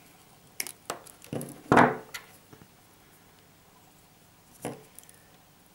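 Small plastic and metal clicks and knocks from handling a plastic telephone-cable repair joint and crimping pliers while wires are pushed into jelly crimps. There is a short run of clicks, a louder knock about two seconds in, and one more knock near the end.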